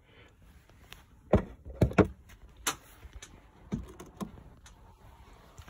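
About half a dozen sharp clicks and knocks of hands handling plug connectors and wiring inside an RC boat hull while fitting a battery. The loudest come in a cluster between about one and a half and two seconds in, with fainter ones later.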